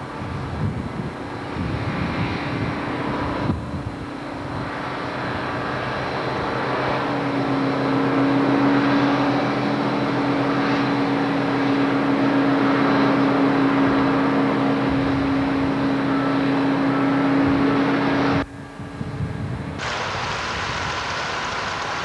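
Voith tug's engines running with a steady droning hum under a loud rushing noise of wind and sea in a storm. The sound changes abruptly about three and a half seconds in and again a few seconds before the end.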